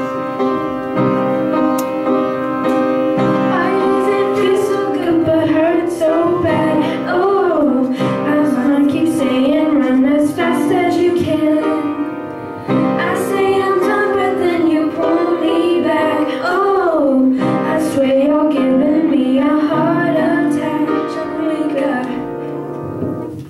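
Girls singing a pop song into a microphone over upright piano accompaniment: long held notes with sliding runs over sustained piano chords, easing off near the end.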